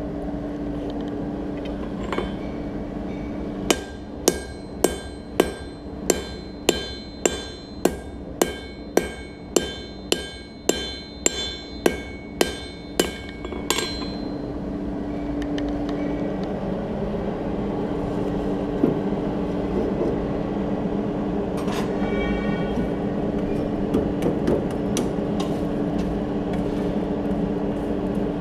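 Blacksmith's hammer striking hot steel on an anvil: a single blow, then a steady run of about eighteen strikes, nearly two a second, each with a short metallic ring, which stops about halfway through. After that, a steady hum with one ringing metal clink.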